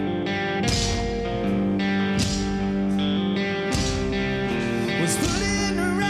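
Live rock band playing: electric guitars holding sustained chords over drums, with crashing cymbal and drum hits every second or so.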